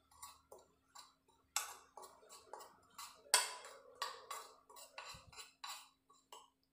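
Steel spoon stirring dry flour and spice powders in a bowl: rapid, uneven scraping and clinking strokes against the bowl.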